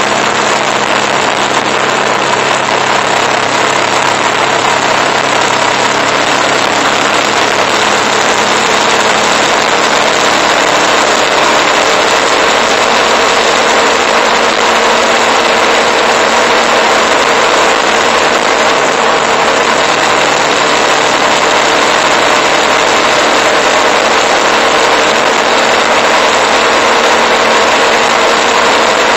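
Motorcycle engine running steadily at cruising speed, heard from a camera mounted on the bike, under a steady rush of wind and road noise.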